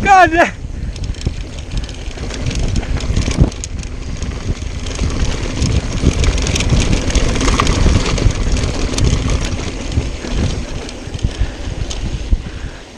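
Mountain bike descending a dry dirt trail at speed: tyre rumble on the dirt and wind buffeting the camera microphone, with the bike rattling and clicking over bumps and a sharp knock about three and a half seconds in. A short high, wavering squeal sounds at the very start.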